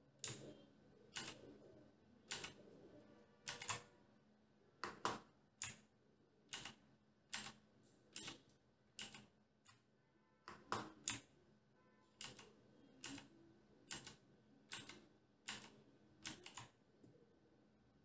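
Sharp clicks, single or in pairs about once a second, from the top-left mode knob of a Cosmic Byte Sirius mechanical keyboard being pressed again and again to step through its backlight modes. The clicks stop a little before the end.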